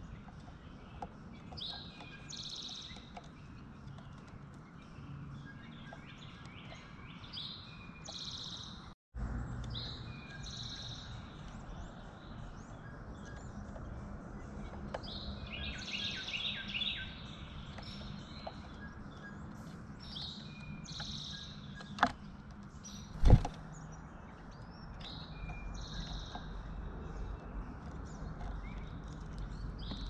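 Small songbirds chirping and calling around a backyard, with short high calls repeating over a steady outdoor background and a quick run of chirps about halfway through. The sound drops out for a moment early on, and two sharp knocks come close together about three-quarters of the way in.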